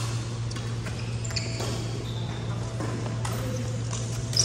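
Badminton rally: a few sharp racket strikes on the shuttlecock and short high-pitched shoe squeaks on the wooden court, over a steady low hum.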